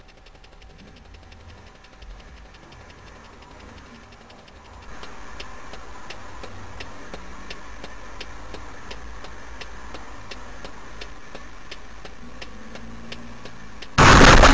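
Car engine and road rumble, stepping up in level about five seconds in, then a loud sudden crash near the end: a vehicle collision.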